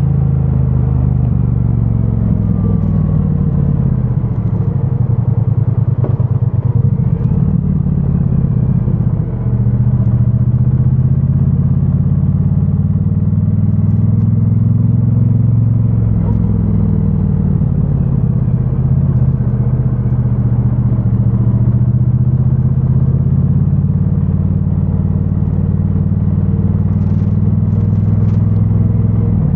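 2022 Triumph Bonneville T100's 900 cc parallel-twin engine running through its stock exhaust, revs rising and falling as the bike rides, with a brief dip about nine seconds in, like a gear change. Heard muffled through a microphone stuffed in the rider's backpack.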